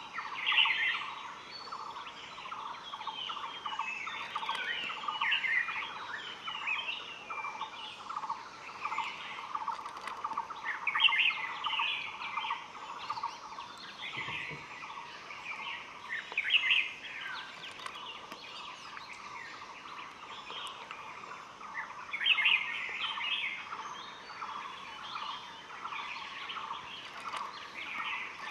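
Forest birdsong: small birds chirping and singing in repeated bursts over a steady, rapidly pulsing background chorus, with one soft thump about halfway through.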